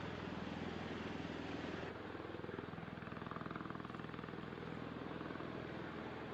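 V-22 Osprey tiltrotor's engines and proprotors running: a steady low drone with a rapid rotor beat under a rushing noise. The sound changes abruptly about two seconds in.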